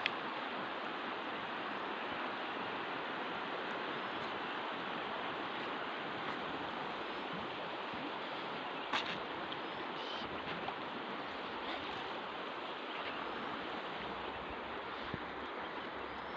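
Steady rushing of a fast river, with a faint click about nine seconds in.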